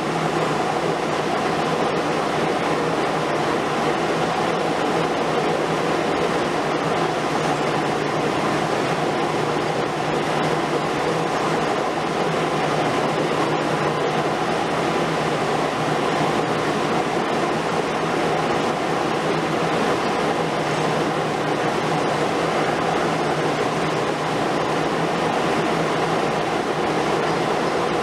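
Demolition excavators working, a long-front Liebherr R 950 Demolition among them: a steady, even drone of diesel engines and hydraulics, with no sharp impacts standing out.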